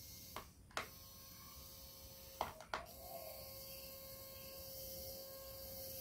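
Small 3 V geared DC motor running with a thin steady whine, cutting out twice briefly with a sharp click at each stop and restart.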